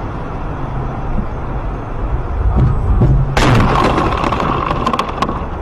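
A car driving on a wet, icy road, heard from inside the cabin: a steady low rumble of engine and tyres. About three and a half seconds in, a loud rushing hiss with faint clicks joins it.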